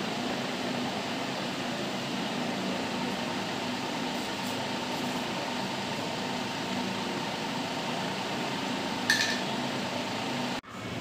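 Steady whirring hum and hiss of background noise, with one short, ringing clink about nine seconds in. The sound cuts off abruptly shortly before the end.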